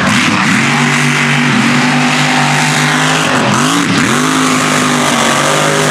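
Mega truck's engine held at high revs under full throttle, with two quick dips in pitch and recoveries about three and a half and four seconds in, over a steady hiss of tyres and flying dirt.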